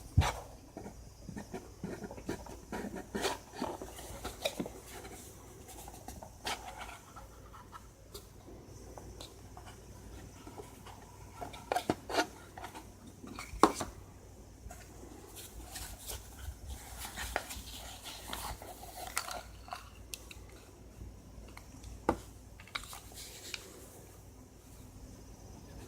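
Hands handling a watch's packaging: scattered light clicks and taps of small hard objects, with brief rustling, the sharpest click about halfway through.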